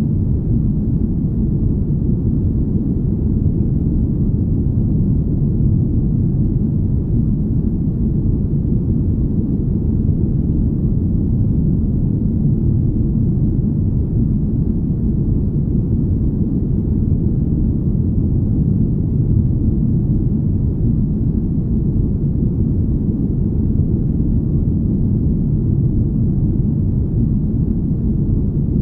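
Deep, smooth rumble noise, a steady and unchanging haze with all its weight in the deep range and nothing in the treble: a continuous spaceship-hum sleep ambience.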